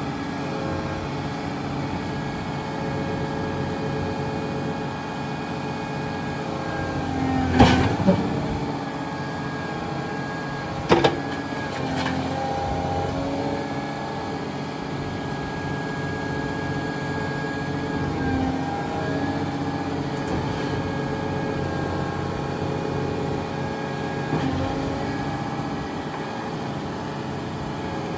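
Volvo EW180C wheeled excavator working: its diesel engine runs steadily under whining tones that step up and down in pitch. Sharp knocks come about eight seconds in and again about eleven seconds in.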